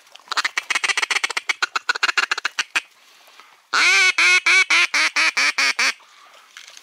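Duck calling: a fast run of short clicking chatter, then a loud series of about nine quacks.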